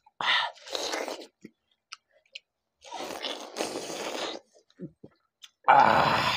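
People biting and chewing juicy watermelon slices close to the microphone, heard as three bursts of wet crunching and slurping, the loudest near the end.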